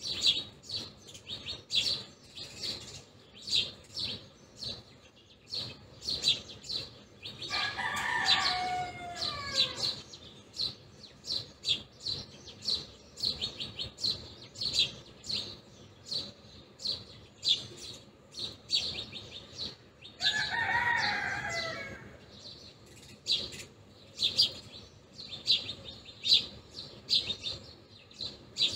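A flock of Eurasian tree sparrows chirping densely and continuously while feeding. Twice, about eight seconds in and again after twenty seconds, a rooster crows in the background, a longer, lower call falling in pitch over about two seconds.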